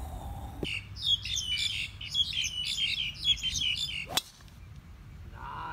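Small birds chirping in quick, repeated high calls. About four seconds in comes a single sharp crack as a golf driver strikes the ball off the tee.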